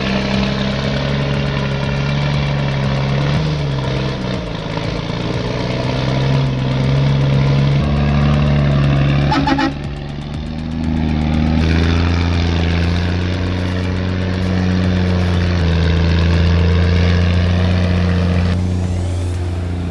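Heavy logging truck's engine running steadily, its pitch shifting up and down as engine speed changes, with a brief drop near the middle.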